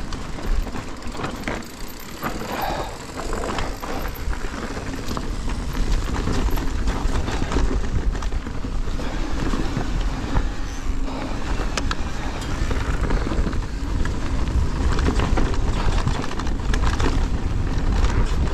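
Electric mountain bike descending a rough, rocky trail: tyres running over stones and the bike clattering, with many short knocks and rattles over a steady low rumble.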